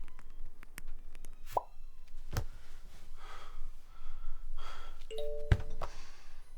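Dishwashing at a sink: water splashing and plopping, with a run of light clinks from dishes and two heavier knocks, about two and a half and five and a half seconds in. One knock leaves a brief ring.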